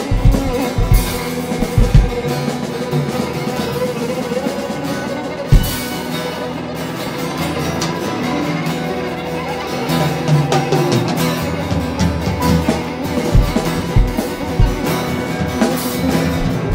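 Instrumental band passage of a song with no singing: drum kit and guitar, with heavy drum hits in the first couple of seconds, once more a little before the middle, and again near the end.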